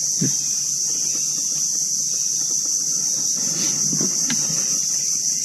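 Steady, high-pitched chorus of insects: an unbroken shrill drone.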